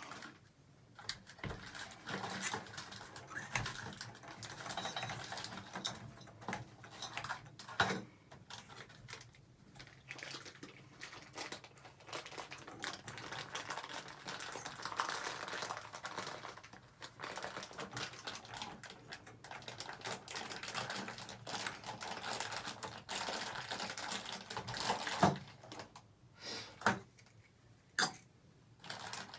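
Irregular clicking, tapping and clattering of metal hand tools and faucet parts being handled at a tub-and-shower valve's stems, with a few louder knocks.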